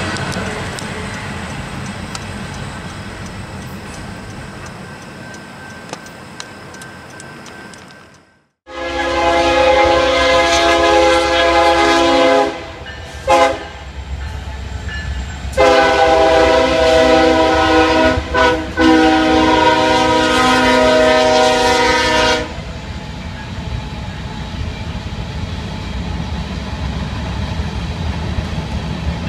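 Diesel freight locomotive air horn sounding a chord in several blasts: a long one, a short one, then a long one, over the low rumble of the locomotive. Before it, the noise of a passing train fades away and cuts off.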